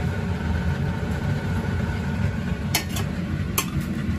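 A steady low kitchen rumble, with a serving spoon clacking twice against an enamel plate of chopped shallots and coriander a little under three seconds in.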